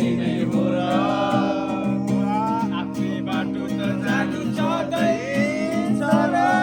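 Music: a Nepali song with acoustic guitar strumming chords in a steady rhythm and a voice singing the melody.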